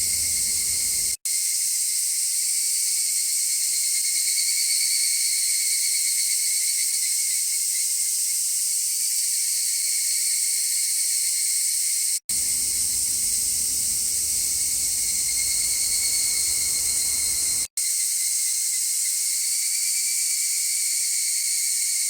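Cicadas buzzing in a steady, dense, high-pitched drone. A low rumble of distant traffic sits under it for about the first second and again for about five seconds in the middle, and is otherwise cut away by an EQ low-cut, with a very brief dropout at each switch.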